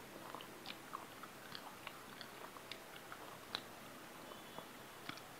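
A person chewing and biting close to the microphone, with irregular small wet clicks and crunches while eating a hilsa fish head with rice.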